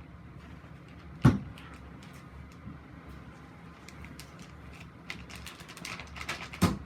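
Handling noise from slime and a plastic bag on a table: a sharp thump about a second in, then a run of light clicks and crinkles and a second thump near the end as the slime is put into the bag.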